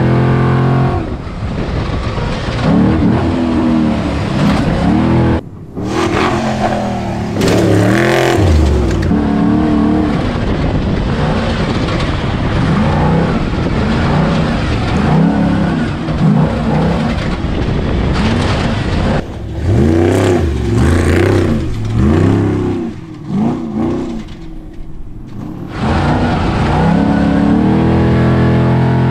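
Class 6100 off-road race truck's engine heard from inside the cab, revving up and falling back again and again as the throttle is worked through the course, over a constant rattling drivetrain and chassis noise. The engine drops off briefly about five seconds in, and again for a couple of seconds near the end.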